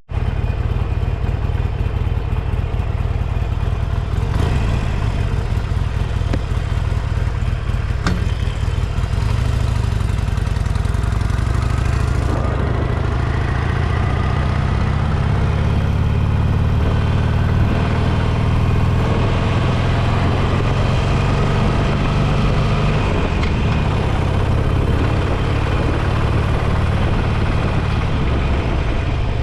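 Motorcycle engine running steadily. Its pitch climbs gradually from about twelve seconds in and drops back a little past twenty seconds.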